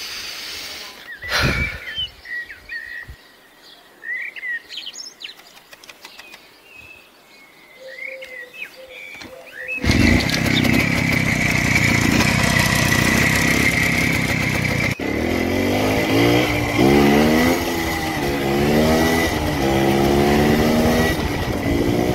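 Birds chirping and a thump in a quiet yard, then about ten seconds in a 2003 Minsk motorcycle's 125 cc two-stroke engine starts running loudly. Later the engine climbs in pitch, drops and climbs again several times as the bike is ridden up through the gears.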